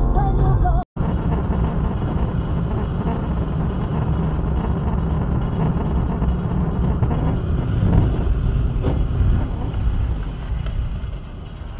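Steady road and engine rumble inside a moving car, picked up by a dashcam microphone, with a few faint knocks; it gets quieter near the end.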